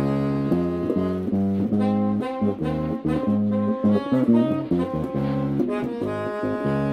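Jazzy background music led by saxophone and brass over a bass line.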